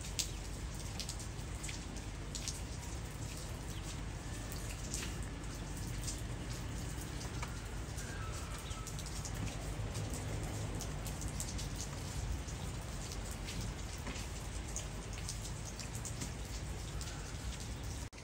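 Heavy snowfall pattering on leaves and surfaces: a steady hiss scattered with many light, irregular ticks of flakes and drops landing.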